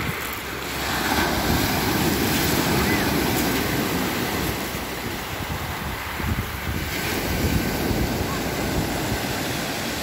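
Small Black Sea waves breaking and washing up a pebble beach, the foaming surf swelling about a second in and again near the end, with wind buffeting the microphone.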